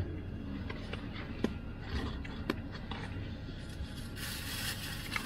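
Inside a car idling in stopped traffic: a steady low rumble, a few light clicks in the middle, and a brief noise near the end.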